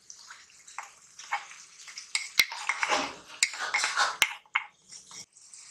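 A crushed green chilli, garlic and onion mix being added by hand to a stainless steel pan of hot oil and stirred: scraping and rustling with light sizzling, and three sharp metal clicks in the second half.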